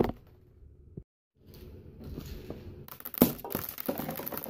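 A BB-filled plastic toy grenade hitting a hard surface: a sharp crack of impact about three seconds in, followed by a second or so of small clicks as the airsoft BBs scatter. A short knock sounds at the very start.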